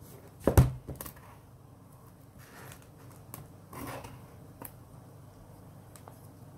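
Hands handling a shrink-wrapped cardboard phone box on a wooden desk: a sharp thump about half a second in, then a few light clicks and soft rustles of the plastic wrap.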